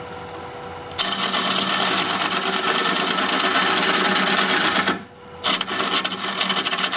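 Bowl gouge cutting the inside of a spinning bowl of hard cherry plum wood on a lathe. The lathe runs quietly at first; about a second in the gouge bites and a loud, continuous cutting noise begins. It stops briefly around five seconds in and then resumes, choppier.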